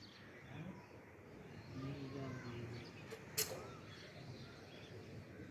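Faint background with birds chirping now and then, a low voice briefly around two seconds in, and one sharp click about three and a half seconds in.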